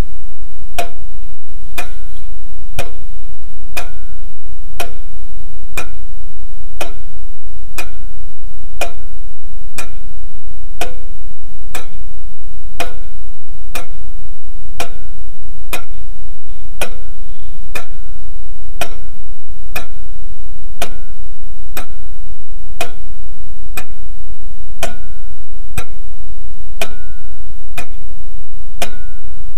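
Clock ticking steadily, about one sharp tick a second, over a steady low hum.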